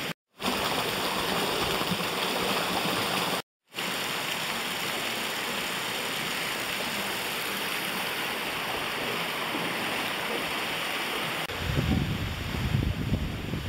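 Stream water running and splashing over sandstone ledges in small falls, a steady rushing that cuts out briefly twice, near the start and about three and a half seconds in. Near the end the rushing fades and an uneven low rumbling takes over.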